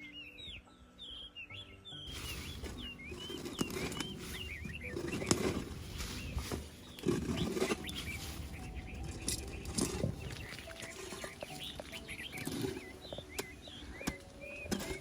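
Small birds chirping repeatedly, with irregular rustling and knocking that comes and goes every few seconds.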